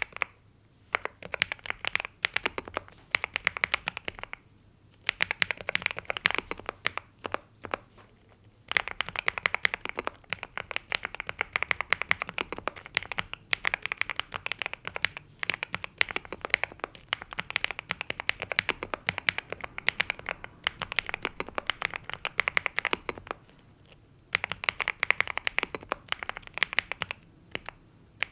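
Typing on a NuPhy Gem80 mechanical keyboard with NuPhy Mint linear switches and double-shot PBT mSA keycaps: fast, continuous keystrokes in long runs, broken by a few short pauses.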